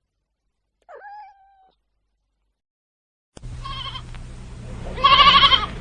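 A brief pitched call about a second in, then, with a low steady hum underneath, a sheep bleating: a short bleat, then a louder quavering one near the end.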